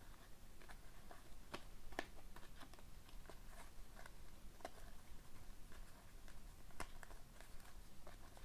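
Faint, irregular light clicks and rustles of trading cards being handled.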